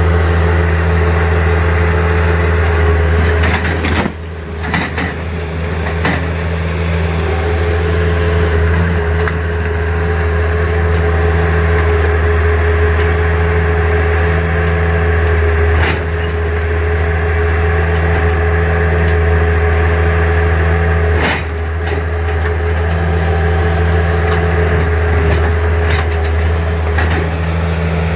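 Bobcat skid-steer loader's engine running steadily, with a steady whine above the engine note and a few sharp knocks scattered through as its bucket tears brick veneer off a wall.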